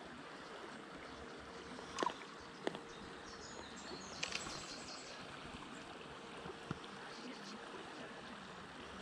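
Shallow, gravel-bottomed burn flowing steadily over stones, with a few faint sharp clicks scattered through.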